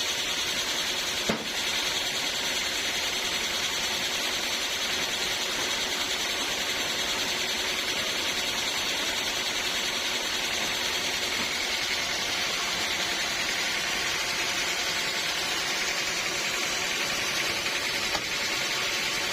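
Sawmill saw running steadily with a high hiss, with a sharp knock about a second in and a smaller one near the end.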